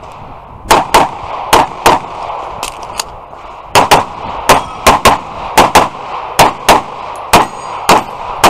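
Semi-automatic pistol fired rapidly in an IPSC course of fire: about twenty sharp shots, mostly in quick pairs (double taps on each target), with short gaps as the shooter moves between targets.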